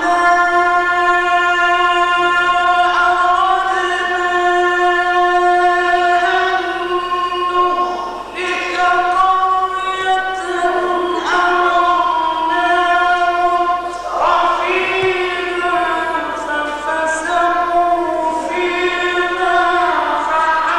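A solo male voice reciting the Quran in the melodic mujawwad style, holding long notes and sliding between pitches in ornamented phrases, with short breaths every few seconds.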